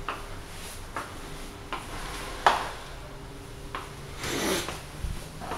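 Footsteps on a tiled floor, short sharp steps roughly every three quarters of a second, with rubbing and rustling from the hand-held camera and clothing. A faint steady hum runs underneath.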